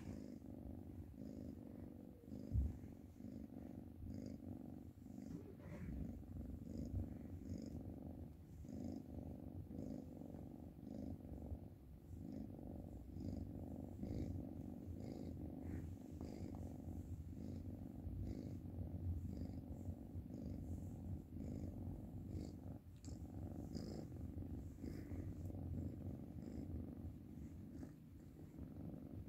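Black Oriental kitten purring steadily and close up while being stroked. A brief low thump sounds about two and a half seconds in.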